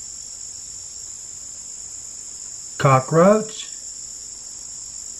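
Steady high-pitched chirring of insects running without a break as a background track, with one word spoken about three seconds in.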